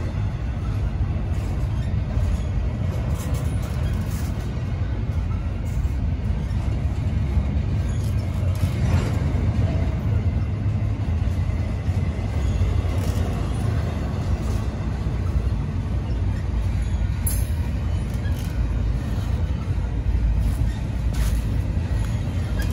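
Empty intermodal well cars of a freight train rolling past close by: a steady low rumble of steel wheels on the rails, with short sharp clicks now and then.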